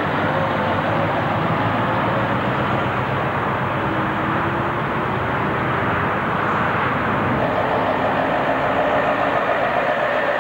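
Diesel engines of heavy articulated lorries running steadily as the trucks pull away and pass close by.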